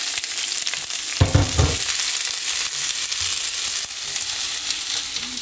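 Sliced bell peppers and onions sizzling in hot olive oil in a cast-iron skillet as they are stirred with a wooden spatula. The sizzle is a steady hiss, with a short low thud about a second in.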